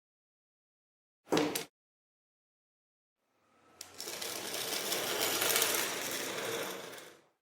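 Small handheld power tool working the metal of a die-cast model car while stripping rust: a brief burst just over a second in, then a longer run from about three seconds in that builds up, holds and fades away near the end.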